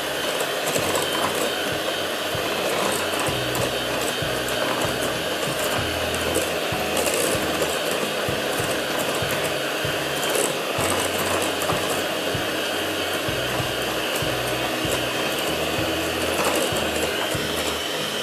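Electric hand mixer running steadily, its beaters whisking cake batter of creamed butter, sugar and eggs in a glass bowl as orange juice is beaten in.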